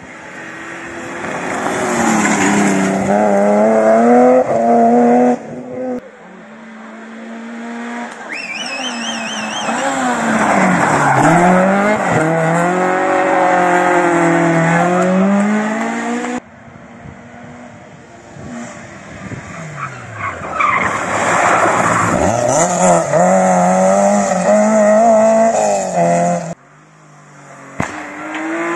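Rally cars driven hard on a stage, one after another: each engine revs up and drops back through the gear changes, with tyres skidding and squealing. Each car's sound cuts off suddenly, with the next starting a few seconds later.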